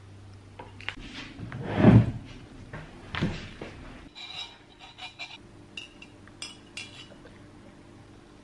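Kitchen crockery and utensils being handled: a loud clatter about two seconds in and another about a second later, then a run of light clinks and taps of dishes and cutlery.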